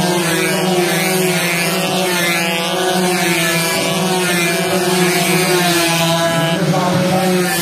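Two-stroke 120cc underbone race motorcycles running hard at high revs, a steady high buzz. The pitch bends as bikes pass close about six seconds in.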